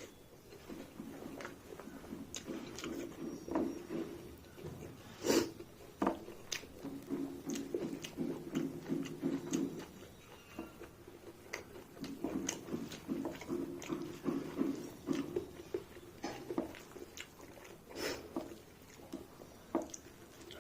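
Close-up chewing and mouth sounds of a person eating a rice meal, with rhythmic runs of chewing and frequent sharp clicks and smacks, a few of them louder.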